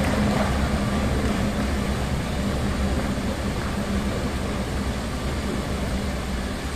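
Large football-stadium crowd clapping steadily, easing slightly toward the end, with a faint low hum underneath.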